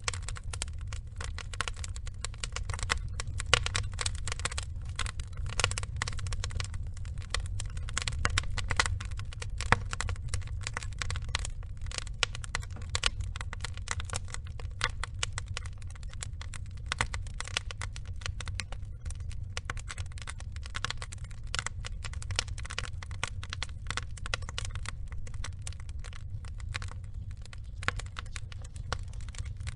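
Wood logs burning, with a steady stream of irregular crackles and sharp pops over a low rumble.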